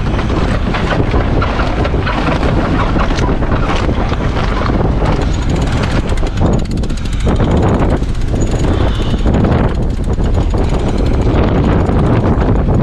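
Wind buffeting the microphone, with fast clicking from about five seconds in as a mast-mounted halyard winch is cranked to hoist the mainsail.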